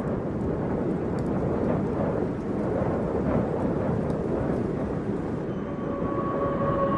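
Steady low rumbling noise, like a storm or wind soundscape. About five and a half seconds in, a few held steady tones join it.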